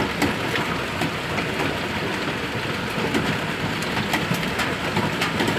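Hailstones pelting down hard: a dense, steady clatter of countless sharp, irregular impacts.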